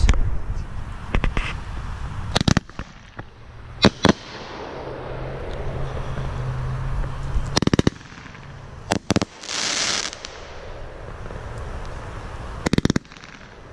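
Consumer fireworks going off close by: a loud bang at the start, then scattered sharp cracks and pops in quick clusters, with a burst of crackling hiss about ten seconds in.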